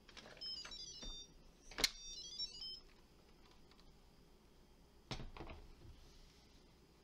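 A short sound-effect jingle of quick, high chiming tones stepping up and down, with a few clicks and one sharp click in the middle, in the first three seconds. A single knock follows about five seconds in.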